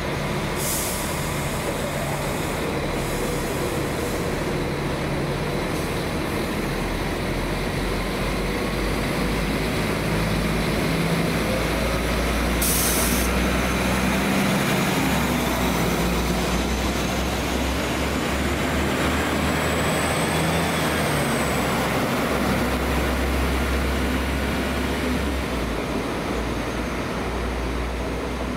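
A train at a station platform: a steady low rumble from the train, with two short hisses of released air, about a second in and again about thirteen seconds in. A thin high whine rises and then falls through the middle.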